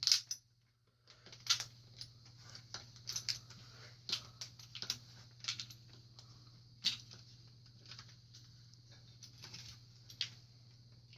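Irregular light metallic clicks and taps, some in quick clusters, from a tool working the mountain bike's stem bolt as it is tightened down, over a faint steady hum.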